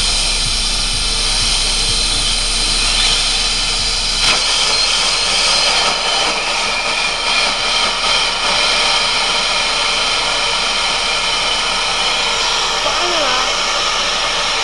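Horizontal pneumatic rock drill running in a quarry: a loud, steady hiss and whine of compressed air, with a sharp knock about four seconds in.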